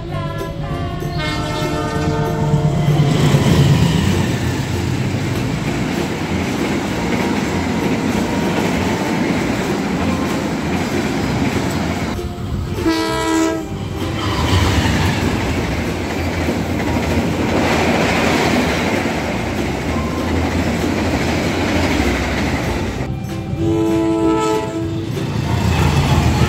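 Indonesian (KAI) passenger train running through the station at speed, with a steady rushing and rattling of wheels on rails. The locomotive horn sounds in blasts several times: at the start, about halfway through and again near the end.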